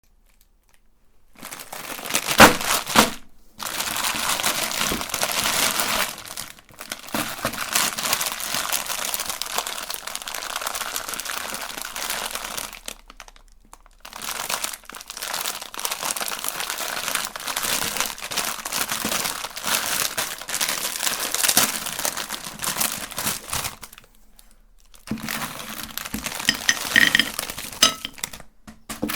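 Candy crunching and crinkling as it is forced through a meat grinder, a dense crackle of many small cracks. It comes in several stretches separated by brief silent breaks.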